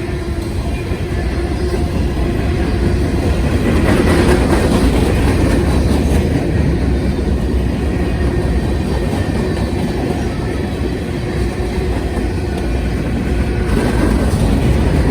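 CSX freight train rolling past, its cars' wheels rumbling and clattering steadily on the rails, swelling a little twice.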